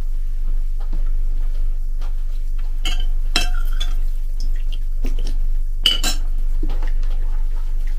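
Metal spoon clinking against a ceramic soup bowl: two ringing clinks about three seconds in and two more around six seconds, with faint small clicks of eating between. A steady low hum runs underneath.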